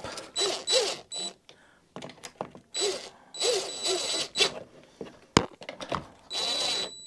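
Cordless drill-driver whining in three short bursts as it drives the screws of a plastic air filter housing on a lawnmower engine. A sharp click comes a little after the middle.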